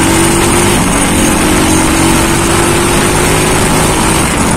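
Honda CB100 motorcycle's small single-cylinder four-stroke engine running at a steady cruise under the rider, its pitch holding nearly constant, with road and wind noise over it.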